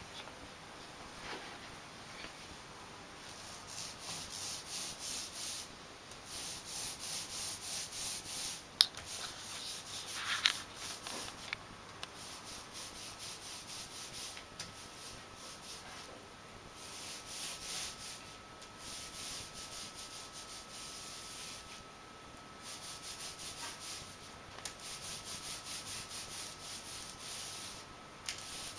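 Small paint roller rolled back and forth over a plastic wall stencil: a rasping rub in runs of quick strokes, with short pauses between runs. A single sharp tap sounds about a third of the way in.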